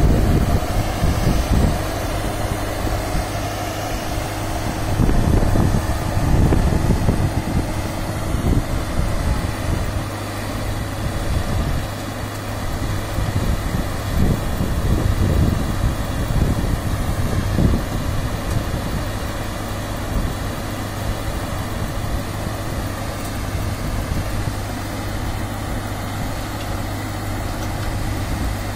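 Self-propelled high-clearance crop sprayer's engine running steadily at a constant speed with a steady low hum, while its spray booms unfold. Wind buffets the microphone in irregular gusts, most strongly in the first half.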